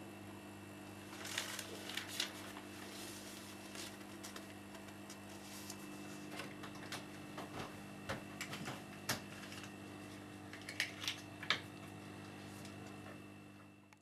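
Faint indoor room tone: a steady low hum with irregular light clicks and ticks scattered through it, fading out at the end.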